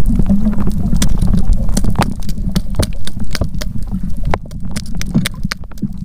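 Muffled underwater noise picked up by a submerged camera: a dense low rumble of water movement from a swimmer diving close by, with many short clicks and crackles scattered throughout.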